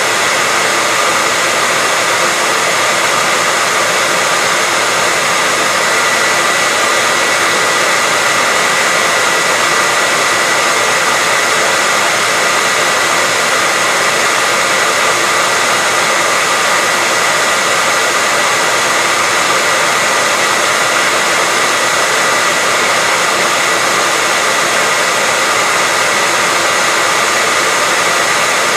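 Hair dryer running steadily: an even rushing of air with a faint steady whine in it, unchanging throughout.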